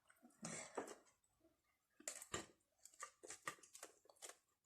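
Faint handling noises at the table: a soft scrape about half a second in, then a quick, irregular run of small clicks and taps, as hot sauce is being put on chicken wings.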